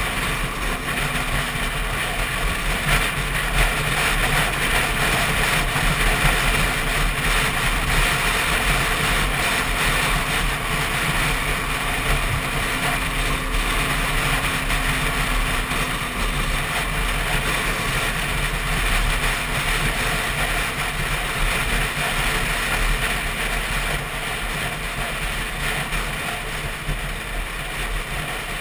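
Steady wind rush over a helmet-mounted action camera on a motorcycle at cruising speed, with the Yamaha WR125's single-cylinder engine running steadily underneath. The sound is slightly quieter near the end.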